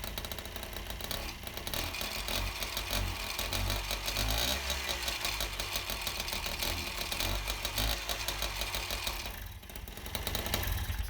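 Piaggio moped's 49 cc single-cylinder two-stroke engine running on the bench with a Champion spark plug fitted. The loudness swells as it is opened up and dips briefly near the end. It hesitates on acceleration, a fault the mechanic puts down to that spark plug.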